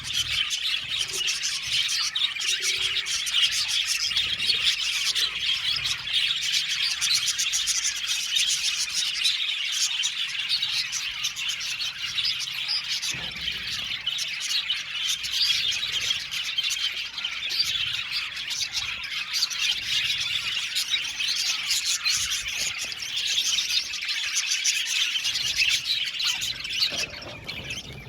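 A flock of budgerigars chirping and warbling together, a dense, continuous chatter of many overlapping high chirps.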